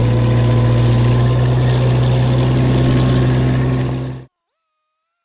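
Ditch Witch R65 trencher's gasoline engine running steadily at a constant speed, then the sound cuts out abruptly about four seconds in, leaving silence.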